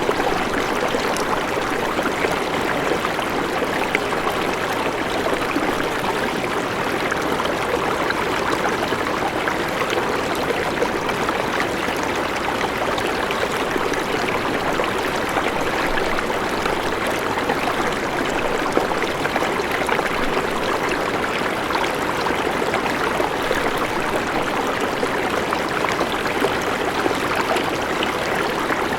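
A river flowing steadily, its water rushing and babbling over rocks with small splashes throughout.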